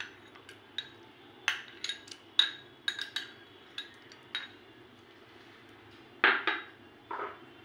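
Scattered light clinks and knocks of steel kitchen utensils and pots being handled, with a louder clatter about six seconds in.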